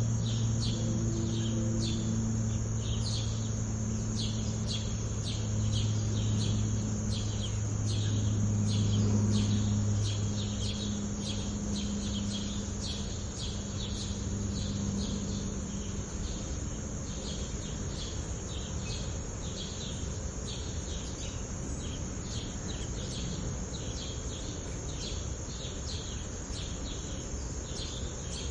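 Sparrows chirping busily, several short chirps a second throughout. Under them the low drone of a plane passing overhead fades out over the first fifteen seconds or so.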